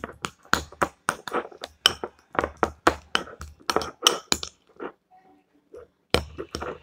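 A utensil clinking rapidly against a bowl while mashing avocado, about four clicks a second. It slows to a few light taps, then gives one louder knock near the end.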